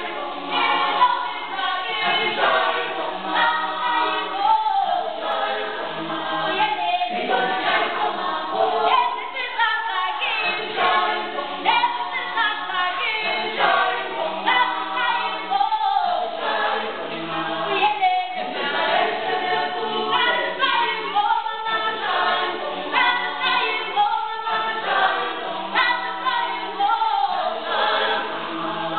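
A group of voices singing a Zulu song without accompaniment, a short phrase repeating every two seconds or so.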